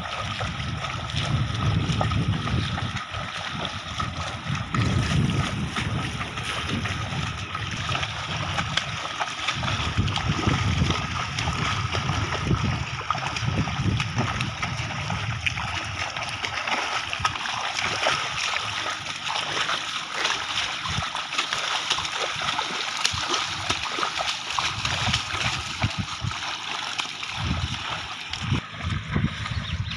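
Hooves of a pair of yoked bullocks and a wooden plough splashing and sloshing through flooded, muddy field water as they walk steadily, with irregular uneven splashes.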